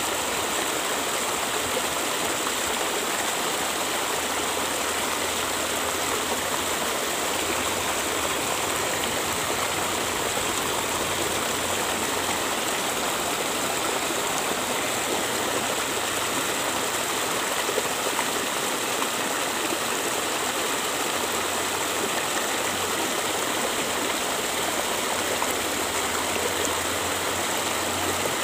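Small river running fast over rocks in a shallow riffle, giving a steady rushing of water.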